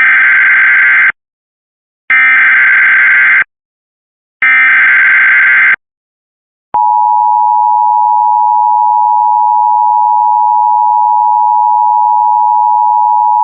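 Emergency Alert System warning opening: three short bursts of SAME header data tones, each about a second long with brief gaps between them. Then, about seven seconds in, the steady attention tone begins and holds.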